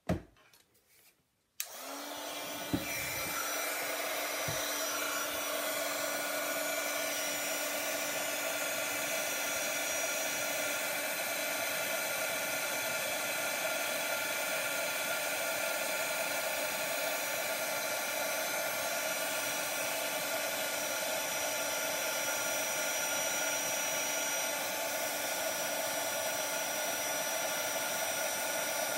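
A handheld embossing heat tool switches on about a second and a half in and then runs steadily with a fan whoosh and a steady hum, melting embossing powder on stamped cardstock. A short knock comes just before it starts.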